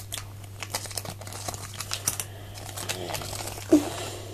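Small plastic toy pieces and their wrapping being handled and unpacked: a scatter of light clicks, taps and rustles, with a brief hummed murmur about three-quarters of the way through.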